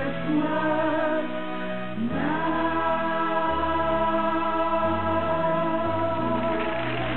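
Group of voices singing with instrumental backing; about two seconds in the voices slide up into a long held chord over a bass line that moves in steps.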